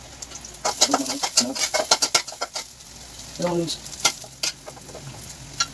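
A utensil stirring and knocking against a cooking pot on the stove: a quick run of clicks and scrapes, then a few more knocks after a pause midway.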